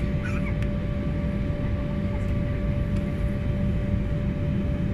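Steady jet-airliner drone inside the passenger cabin of an Embraer E190 on the ground: a dense low rumble with a steady whine over it, unchanging throughout.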